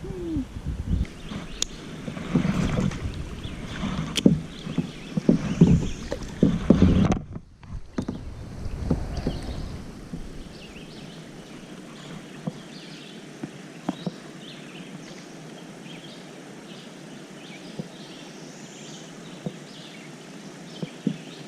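Water sloshing and knocks against a kayak's hull as the angler handles the boat and gear just after releasing a fish, irregular and fairly loud for the first several seconds. After a sudden break, a quieter steady outdoor background with faint short chirps follows.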